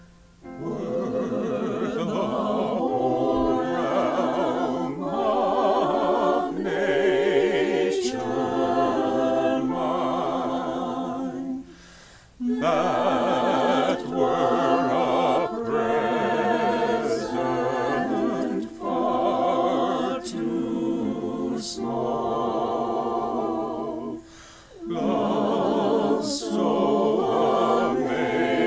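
Mixed choir of women's and men's voices singing a slow hymn a cappella. The singing starts just under a second in and runs in three long phrases, with short breaks for breath near the middle and again about two-thirds through.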